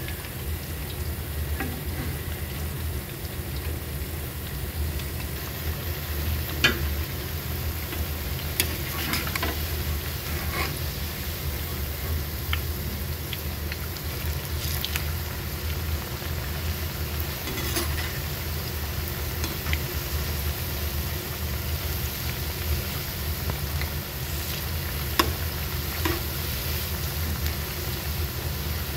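Battered onion and potato pakoras deep-frying in hot oil in a wok with a steady sizzle. A spatula stirs and turns them, knocking against the wok in a few sharp clicks. A steady low hum sits underneath.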